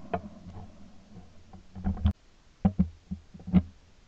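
Irregular clicks and knocks of a shotgun being handled between shots, picked up close by a camera mounted on the gun.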